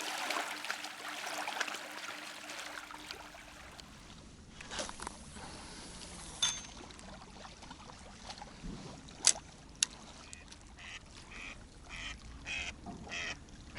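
A hen duck quacking in a quick series of short calls, about three a second, beginning about three-quarters of the way through, over a steady hiss of wind and water. Two sharp clicks come just before the quacking.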